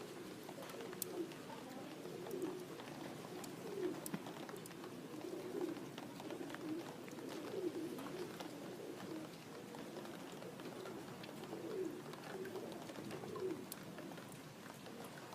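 Domestic pigeons cooing, several birds overlapping in a continuous low burble, with occasional sharp clicks.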